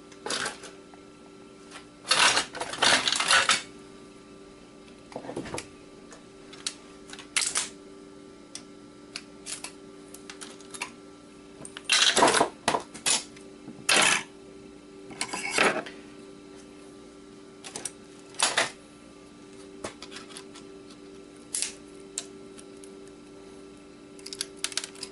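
Irregular metallic clicks, scrapes and clinks of tools working on a dismantled hard drive's metal parts as its copper coil is pried out, with a cluster of sharp clicks a couple of seconds in and another about halfway through.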